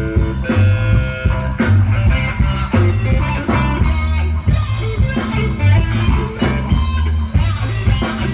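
Live rock band playing with electric guitar, bass guitar and drum kit over a steady beat.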